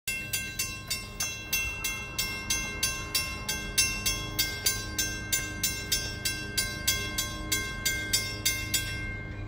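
Railroad grade-crossing bell ringing in a fast, even series of strikes, about two and a half a second, warning of an approaching train while the crossing gates lower; it stops shortly before nine and a half seconds in.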